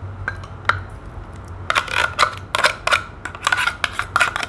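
A utensil scraping and tapping against the inside of an opened tin can, working the canned fish out. A few scattered clicks, then from about two seconds in a quick run of scrapes, roughly three a second.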